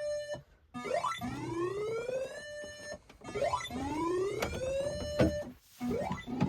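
Tornado-siren wail played over a loudspeaker: a rising tone that climbs and levels off, cut short and started again about every two and a half seconds.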